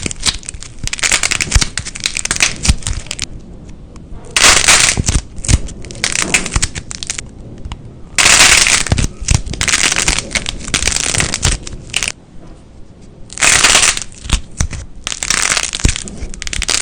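Slime being squeezed and pressed by hand, making crackling, popping and squelching clicks in uneven bursts, the loudest about four, eight and thirteen seconds in.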